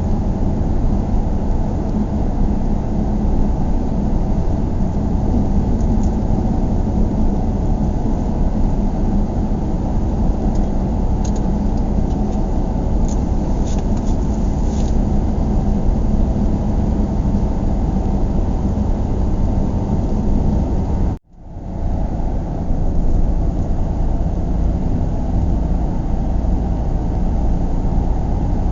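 Steady road and engine noise of a car being driven, a deep, even rumble with most of its weight low down. About three quarters of the way through it cuts out abruptly for a split second and fades back in.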